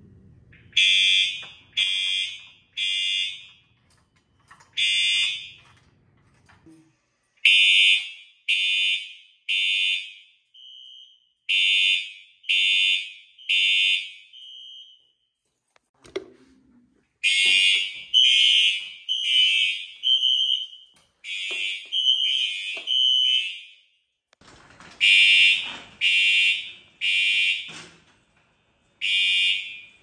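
Fire alarm horns on an older Cerberus Pyrotronics system sounding the evacuation signal in groups of three blasts about a second apart, with a pause after each group. Around the middle, more than one horn sounds out of step.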